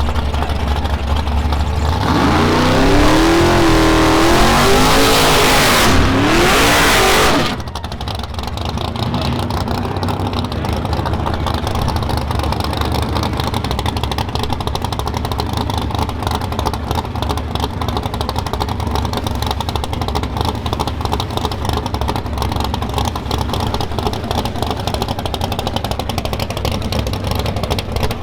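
Drag-racing car engine at full throttle, its pitch climbing, dropping and climbing again through gear changes for about five seconds, then cutting off abruptly. After that, a steady engine rumble with background noise.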